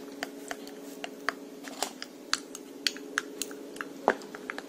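Plastic spoon stirring beaten egg with sliced petai beans and chili in a ceramic mug, clicking and scraping against the mug's sides in irregular light clicks, a few a second, with the sharpest click near the end.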